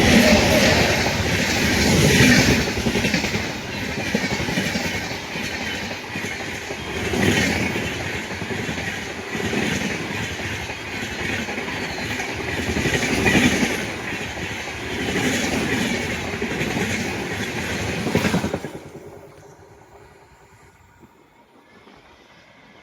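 A train passing close by, its wheels clattering over the rail joints in regular swells, until the sound drops away suddenly about eighteen seconds in as the end of the train goes past.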